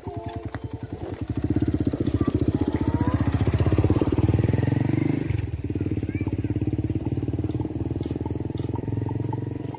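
Motorcycle engine running close by with a rapid, even firing pulse, getting louder about a second in and easing off a little around five seconds.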